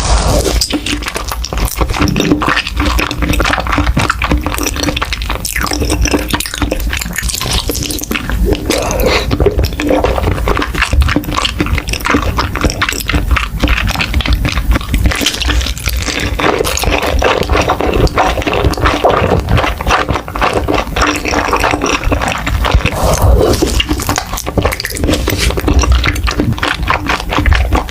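Close-miked ASMR eating of mochi: wet, sticky chewing and mouth smacks in a dense, unbroken stream of small clicks and squelches.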